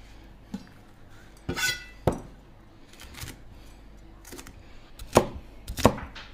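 Chinese cleaver cutting chili peppers on a plastic cutting board: a few separate knocks of the blade striking the board at uneven intervals, the loudest about five seconds in.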